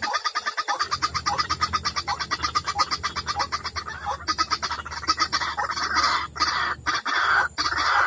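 White-breasted waterhen calls: a fast rattling run of notes, then louder harsh croaking calls from about five seconds in, the calls used to lure waterhens to a trap.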